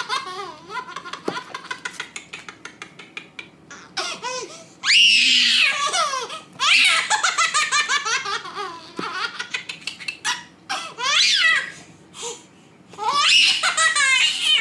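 A baby laughing hard in bouts: rapid runs of belly laughs broken by long, high squeals, with short pauses between the bouts.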